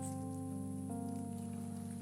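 Instrumental background music: held notes changing about once a second.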